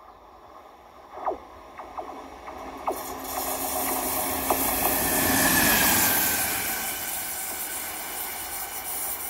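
Electric locomotive running on its own passing by: a few sharp clicks from the rails as it approaches, then wheel and running noise rising to a peak about six seconds in and easing off, with a whine that drops in pitch as it goes past.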